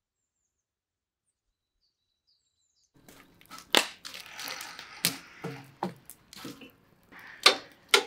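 Near silence at first. About three seconds in, an open wood fire starts up with sharp cracks every second or so over a steady hiss, and metal cooking tools knock and scrape against a large pan and the fire grate.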